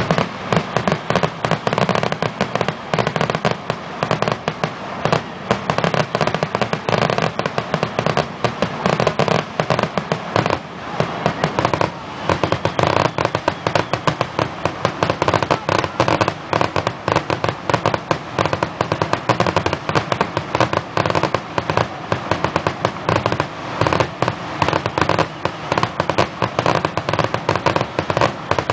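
Aerial fireworks display: a dense, unbroken barrage of overlapping shell bangs and crackling, many reports a second.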